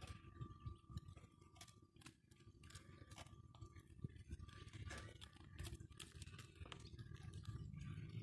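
Near silence: a faint low rumble and a faint steady high tone, with scattered small crackling clicks.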